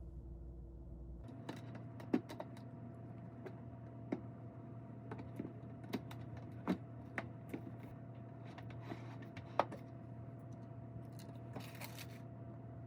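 Irregular light clicks and taps, like small hard objects being handled, over a steady low hum.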